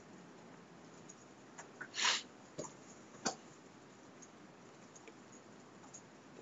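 Quiet room tone broken by a few brief sounds. A short hissing burst about two seconds in is the loudest, and a sharp click comes a little after three seconds.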